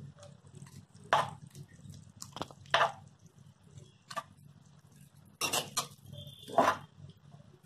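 Metal spatula scraping and knocking against a metal pan while stirring a dry mix of chopped leaves and grated coconut, about half a dozen irregular scrapes, over a low steady hum.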